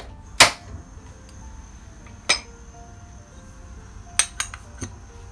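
A few sharp clinks and knocks of ceramic dishes, utensils and a pan being handled, over faint background music. The loudest is about half a second in, another comes around two seconds, and three quick ones come near the end.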